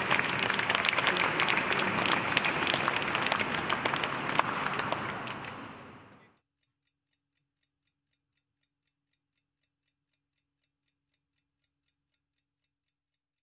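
Audience applauding, fading out over about a second until it stops some six seconds in, followed by silence.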